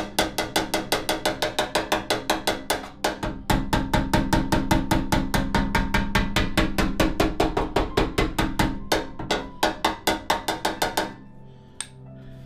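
A small hammer tapping rapidly and evenly on the metal front bodywork of a Piaggio ET2 scooter, working off-dolly against a heavy dolly to push out dents. There are about six or seven ringing metallic taps a second, and they stop shortly before the end.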